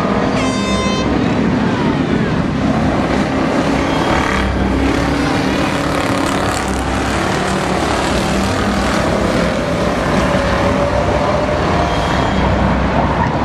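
Several dirt-track stock cars racing around a dirt oval, their engines running hard with pitch rising and falling as the cars pass. A brief high-pitched tone sounds about half a second in.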